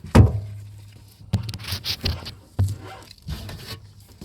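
Knocks and rubbing as a door lock mechanism is worked into place inside a car door: four sharp knocks in the first three seconds, some followed by a low hum, with fainter scraping between.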